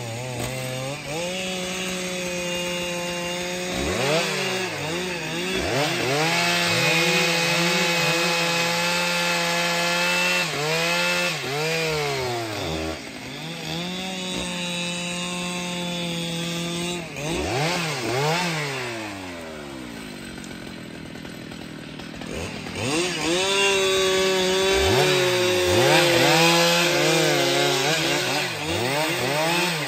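Stihl MS 881 chainsaw, a large two-stroke saw, at full throttle cutting through tree limbs in several long cuts. Its pitch sinks and holds under load, then swoops up and down as the throttle is blipped and eased between cuts, with a quieter lull a little past the middle.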